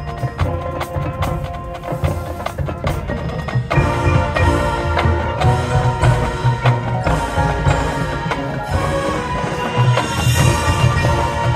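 High school marching band playing its field show: quick clicking percussion strokes at first, then the full ensemble comes in about four seconds in and plays on with a fuller, louder sound.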